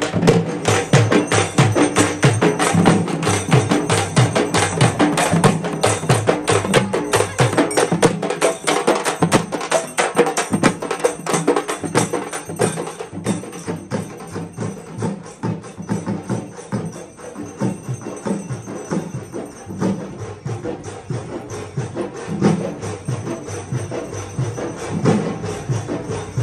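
Music with dense percussion on a fast, steady beat.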